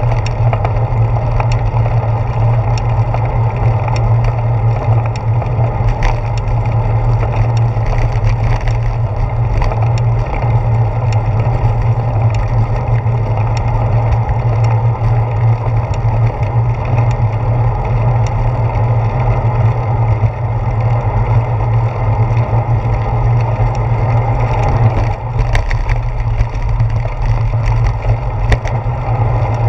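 Steady low rumble with scattered small clicks and rattles: a handlebar-mounted GoPro Hero 4 shaking as a bicycle rolls along a paved path.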